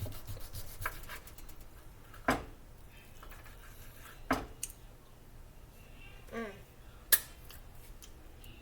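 Three sharp clicks of kitchen utensils against dishes, about two seconds apart, with a few lighter ticks between them.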